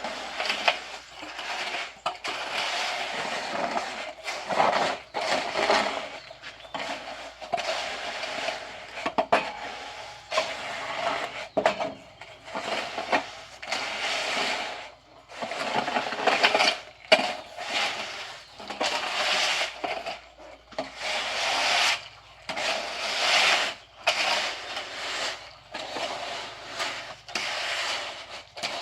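A trowel scraping over wet concrete in repeated, uneven strokes as a freshly poured floor is smoothed.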